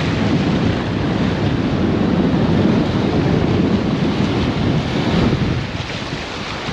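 Wind buffeting the microphone over the steady wash of breaking surf. It eases off about five and a half seconds in.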